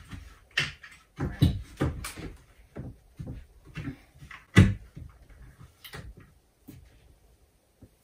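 Plastic sheeting crinkling and rustling as it is handled and pulled at on a wooden door frame, with irregular knocks, the loudest a little past halfway; the sounds thin out near the end.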